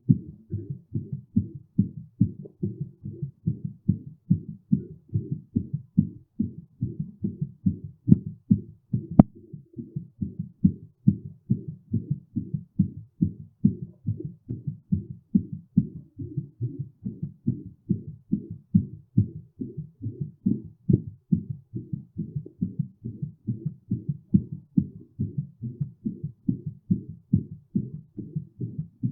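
Human heartbeat: a regular run of low, muffled thuds repeating steadily, with one sharp click about nine seconds in.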